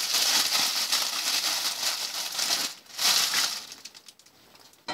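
Plastic bread bag crinkling and rustling as a slice of bread is taken out, in one long spell and a shorter one about three seconds in, stopping about three and a half seconds in. A sharp knock comes right at the end.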